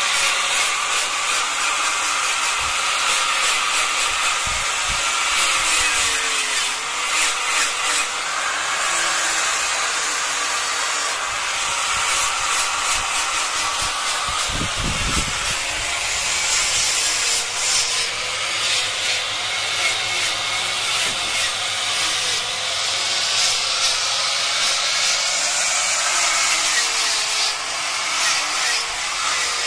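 Hand-held angle grinder with an abrasive disc running continuously against kemuning wood, shaping a badik sheath; the motor's whine dips and recovers as the disc bites into the wood.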